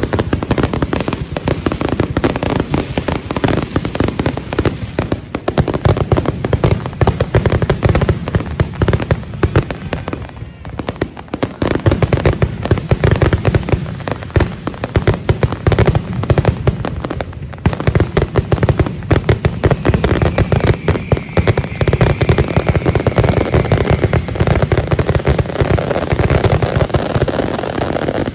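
Fireworks finale barrage: a dense, continuous run of booms and crackling shell bursts, with brief lulls about a third and two thirds of the way through.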